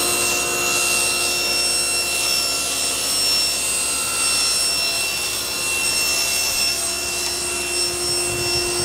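Table saw running steadily while ripping a sheet of 1/2-inch plywood, a continuous whine of the motor and blade with the noise of the blade cutting through the wood.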